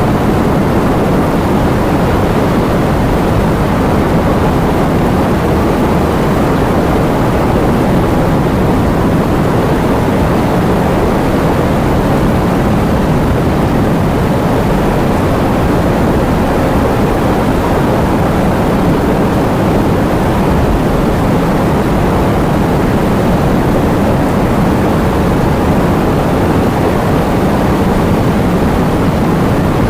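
Heavy rain with wind: a loud, steady, dense roar, deepest in the low end, with no single drops, gusts or breaks standing out.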